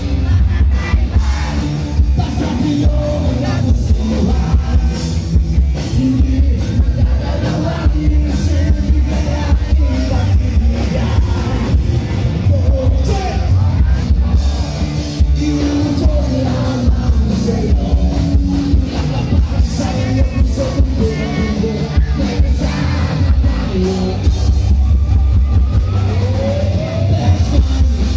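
Live rock band playing loud through a concert sound system, singing over electric guitar and drums, with a heavy booming bass.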